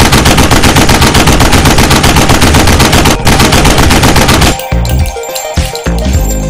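Rapid machine-gun fire as a title sound effect, a fast, even run of loud shots with a short break about three seconds in. About four and a half seconds in it gives way to electronic music with a heavy bass beat.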